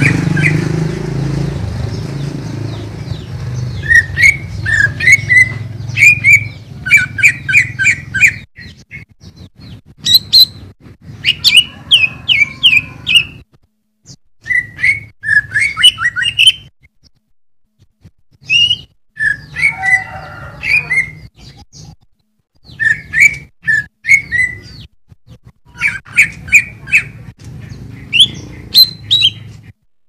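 Greater green leafbird (cucak ijo) singing: short phrases of quick, bright chirping notes, each phrase lasting one to two seconds and separated by brief pauses.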